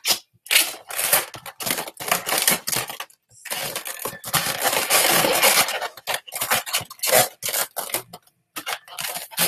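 Latex 260 twisting balloons being handled and twisted against each other: a busy run of irregular rubbing and crackling sounds, with a longer stretch of continuous rubbing about halfway through.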